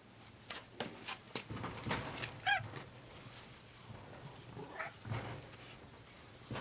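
A cat meows twice: a short, wavering meow about two and a half seconds in and a fainter one near five seconds. Several light knocks and clicks come before the first meow.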